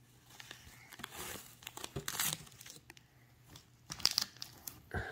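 Folded cotton t-shirts and packing in a cardboard box being handled: soft, intermittent rustling and crinkling, with a sharper crinkle about four seconds in.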